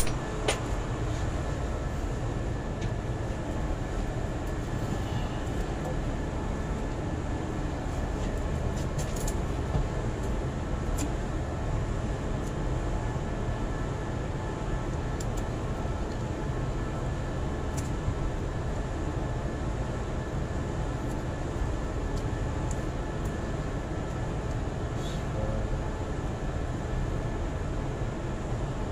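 Steady low machinery rumble with a faint steady whine above it and a few light clicks scattered through.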